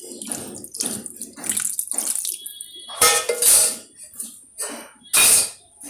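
Wet curry sloshing in a cooking pan as a little milk is poured in and stirred, in irregular liquid swishes, the two loudest about three and five seconds in.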